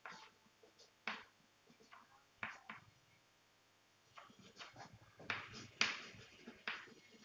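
Chalk writing on a chalkboard: faint, irregular taps and short scratchy strokes as letters are written, coming more often in the second half.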